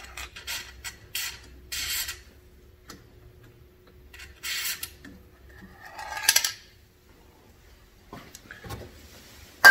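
Aerosol can of white lithium grease spraying into a car's hood latch in several short hisses, with a sharp click near the end.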